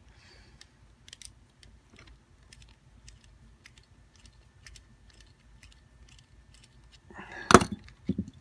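Small metallic clicks and taps of a screwdriver working inside an Abus 72/40 padlock, with a louder metal clatter about seven seconds in.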